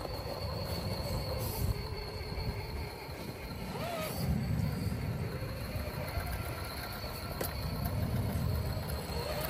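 Electric RC rock crawler's motor and gear drivetrain whining, rising and falling in pitch as it works up a rock face, over a low rumble, with one sharp click about three-quarters of the way through.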